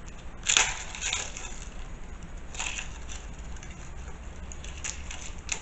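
Dry, papery garlic skins crackling and rustling as a head of garlic is peeled by hand, in about five short bursts.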